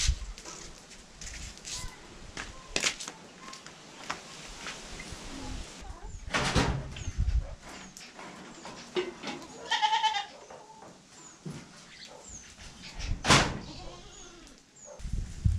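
A goat bleats once, a short wavering call about ten seconds in, among a few sharp knocks and faint high bird chirps.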